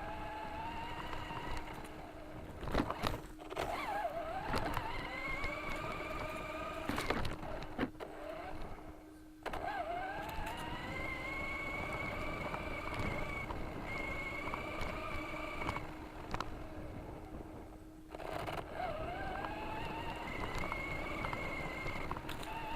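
RC 4x4 car's electric motor whining as it drives, its pitch rising as it speeds up and holding steady. It eases off briefly about nine and eighteen seconds in. A few knocks are heard from the chassis bouncing over rough ground.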